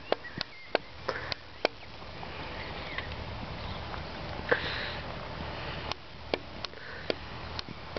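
A horse sniffing, with about a dozen sharp, irregular knocks scattered through.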